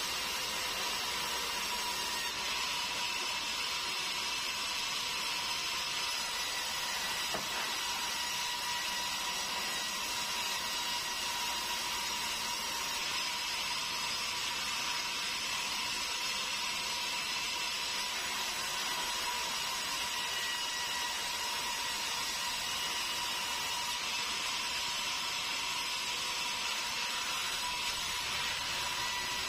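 Sawmill band saw running steadily while sawing hill meranti logs: a constant high whine over a steady hiss.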